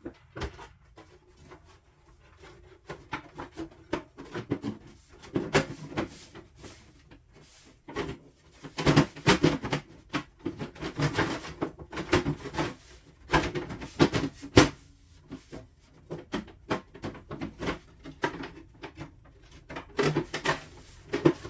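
Irregular clicks, knocks and rubbing, as of objects being handled, coming in clusters with short pauses between them.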